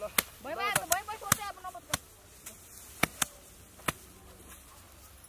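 Sharp, irregular thwacks of grain sheaves being beaten by hand to thresh out the grain, about eight strikes. A child's voice is heard briefly in the first second and a half.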